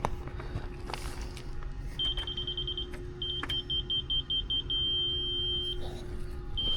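Laser receiver on a grade rod beeping as it reads a construction laser beam: a quick run of high beeps, then slower beeps, then a steady tone that signals on grade. Scattered clicks and knocks are heard around it.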